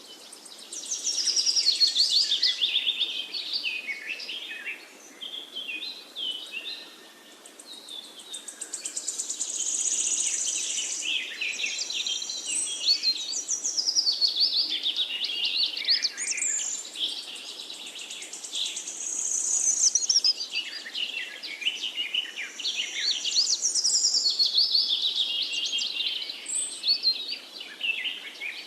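Birds chirping and singing in a continuous chorus: many overlapping high, quick chirps and trills that rise and fall, swelling and thinning every few seconds.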